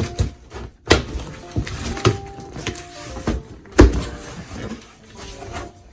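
Background music with short melodic notes over a thumping beat, with two louder thumps, about a second in and near four seconds.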